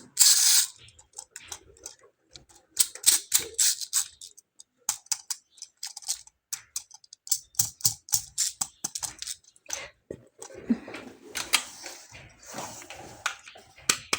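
Toy cars and their plastic packaging being handled: an irregular run of sharp clicks and taps, with a few short bursts of rustling and a brief pause near the middle.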